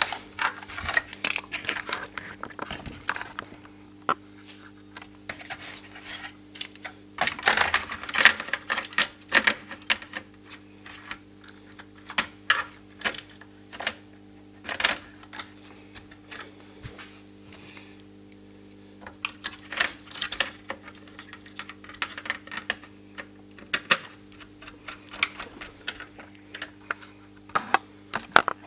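Irregular clicks, taps and light rattles of a circuit board, cable connectors and a screwdriver being handled and fitted in a sheet-metal receiver chassis, with a faint steady hum underneath.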